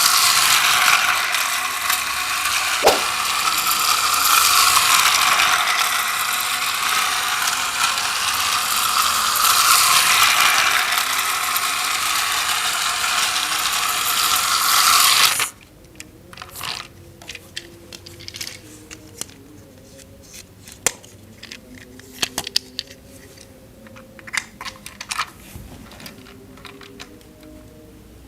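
Battery-powered toy train's geared motor running with a dense, continuous rattling whir that cuts off abruptly about halfway through, followed by scattered light clicks and taps of plastic toy parts.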